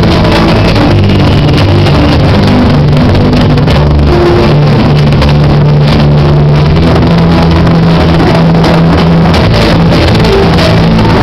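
Loud dance music with a strong bass line whose notes change every second or so.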